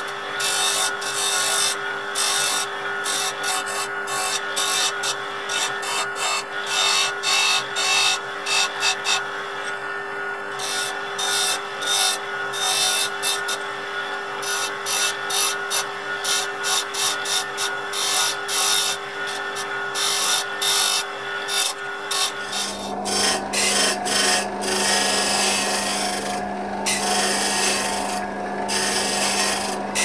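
Wood lathe motor humming steadily while a turning chisel scrapes and cuts the spinning karin (Chinese quince) wood knob blank, a rough scraping noise in many quick, uneven strokes.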